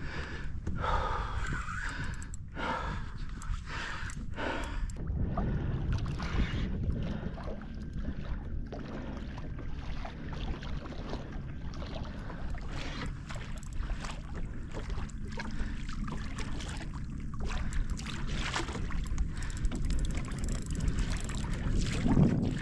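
Water sloshing and splashing around a fishing kayak, with short repeated gasping breaths in the first few seconds.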